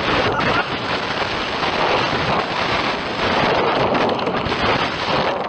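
Loud, continuous rushing noise with crackle, heard inside a car that is crashing off the road and tipping onto its side. It cuts off suddenly at the end.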